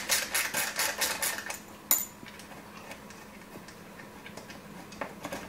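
Ratchet wrench clicking fast and evenly, about six clicks a second, while backing out a rear bumper bolt. The clicking stops about a second and a half in and is followed by one light metallic clink; the clicking starts again briefly near the end.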